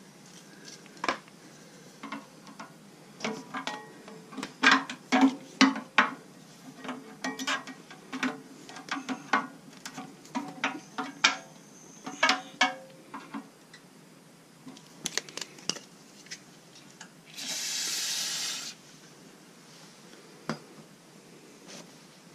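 Light metallic clicks and clinks of a long hex key turning and removing the Allen bolts from a wood chipper's steel inspection-port cover, in an irregular run. Later, a short steady hiss lasting about a second and a half.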